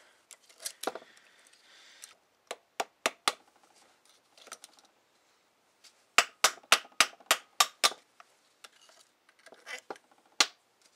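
Sharp metal-on-metal clicks and taps as the steel balls, cage and inner race of a 1996 Ford Escort's outer CV joint are worked out of the housing: a few scattered clicks, then a quick run of about eight in under two seconds, and one more loud one near the end.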